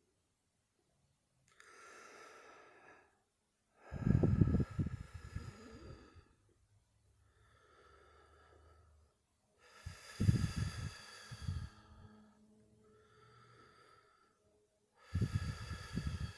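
A person blowing their nose hard into a tissue three times, each blow loud and fluttering, with a quieter breath in before each one.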